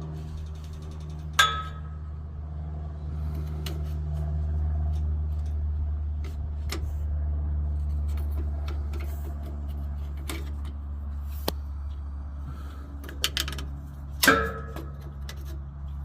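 Scattered clicks and knocks of hands and tools working the shifter cable's clip under the van, with two louder clinks that ring briefly, about a second and a half in and near the end, over a steady low hum.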